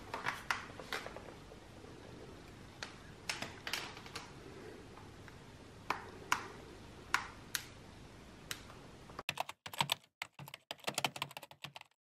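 Scattered light clicks and knocks from the hard plastic body of a Shark cordless stick vacuum being handled. Near the end the background drops away and the clicks come quicker and closer together.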